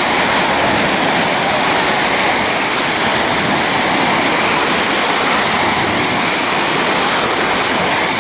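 Loud, steady rush of splashing water, a constant hiss with no breaks.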